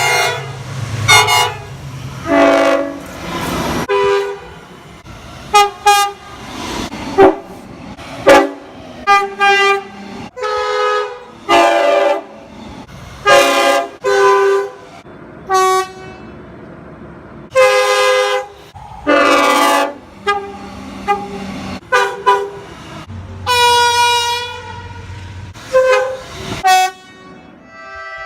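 Train horns sounding a string of short and long blasts, about twenty in all, the pitch and chord changing from one blast to the next, with the longest blast a little before the end.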